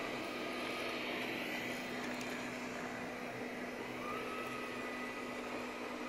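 Roidmi Eve Plus robot vacuum cleaning a carpet, its suction motor running with a steady hum.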